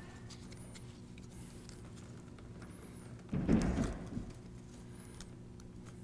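Bundled PC power-supply cables rustling and scraping as hands gather and tie them at the back of a computer case, with one louder rustle about three and a half seconds in, over a faint steady hum.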